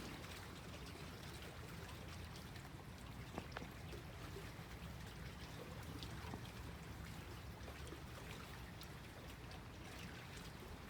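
Small lake waves lapping at the shore: a steady low wash of water with a few faint splashing ticks.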